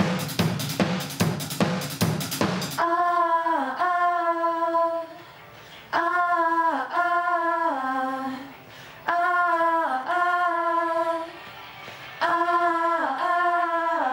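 A drum kit is played hard for the first few seconds and then stops. A woman's voice then sings the same short phrase four times, with short gaps between, each time stepping down in pitch, with no backing.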